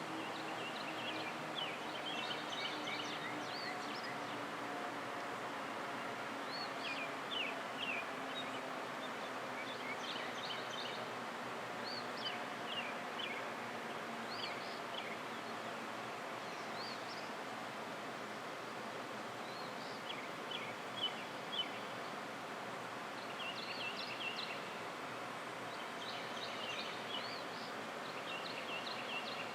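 Small birds chirping over a steady outdoor background hiss. Under them, a faint low tone slowly falls in pitch and fades out over the first half: a distant storm siren winding down.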